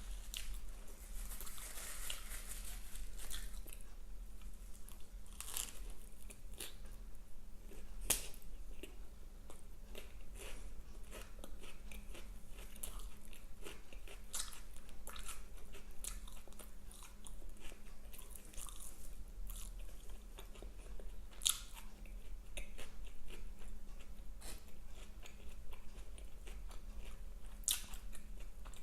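A person chewing and biting fast food close to the microphone, with many sharp crunchy crackles and clicks throughout.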